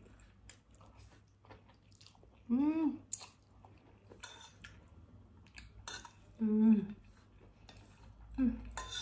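A person chewing mouthfuls of instant noodles, with light clicks of chopsticks and a fork against the plate. Three short hums are heard between bites.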